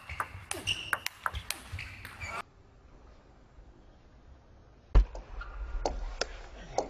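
Table tennis ball clicking sharply off the bats and table in a quick run of rally hits, then dropping to near quiet for about two and a half seconds. A loud thump comes about five seconds in, followed by more ball hits.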